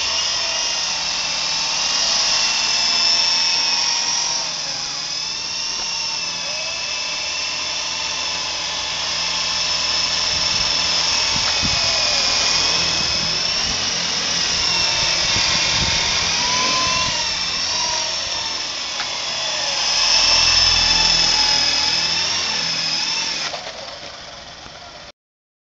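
Toy coaxial RC helicopter (Flying Gadgets T43) with its electric motors and rotors whining. The pitch wavers up and down with throttle throughout, and the whine fades away near the end.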